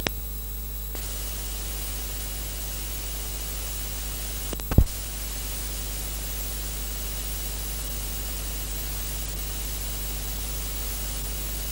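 Steady hiss with a low hum from an otherwise empty soundtrack, broken by one sharp click a little under five seconds in.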